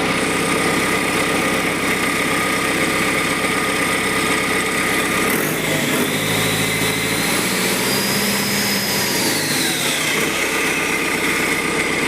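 Mahindra backhoe loader's freshly overhauled diesel engine running steadily. Its tone shifts about halfway through, and a faint whine rises and falls near the end.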